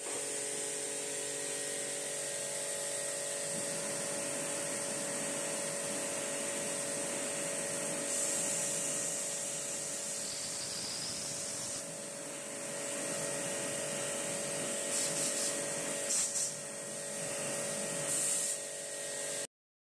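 Pressure washer running with a steady motor whine while its water jet sprays a car air-conditioning condenser coil to wash out the fins. The spray hiss is loudest for about four seconds from roughly eight seconds in, with a few short bursts near the end.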